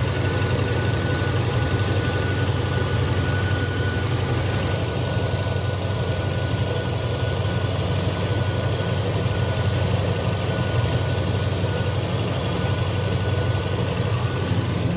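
Big-block V8 with a Holley Terminator X Stealth throttle-body fuel injection idling steadily, with a thin steady whine above the low rumble. With the loose connector held on by a zip tie, all four injectors are firing again.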